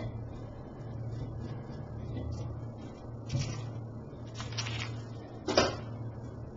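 Handling noise from a Blue Yeti USB microphone being turned on its metal stand: a few soft knocks and rubs about halfway through and one sharper knock near the end, over a steady low hum.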